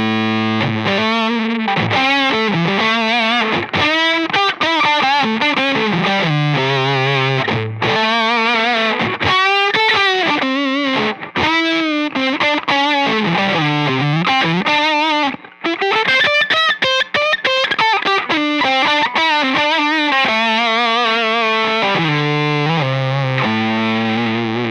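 Electric guitar (a Nash S-63) played through the Spruce Effects Black Friday one-knob silicon fuzz pedal into a Benson Monarch Reverb amp, giving a thick distorted tone. It opens on a held chord, moves into a lead line with wide vibrato and string bends, and settles on another held chord near the end.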